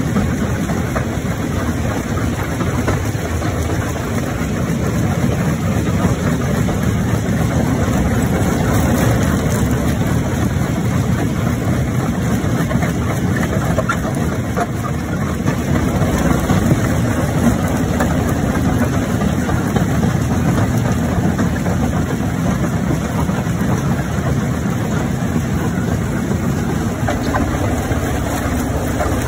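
Jaw crusher running under load, crushing large rocks: a steady, loud, dense grinding rumble of the machine with rock cracking and knocking faintly within it.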